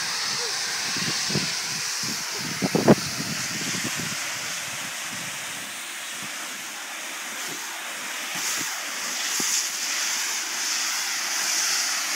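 Sprinkler spraying water up through a trampoline mat, a steady hiss. A few thumps from bodies on the wet mat come about three seconds in, the last one the loudest.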